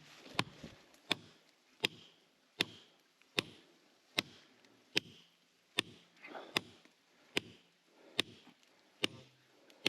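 A metal tool striking hard, concrete-like stone and mortar in an even rhythm, about thirteen sharp blows a little under a second apart.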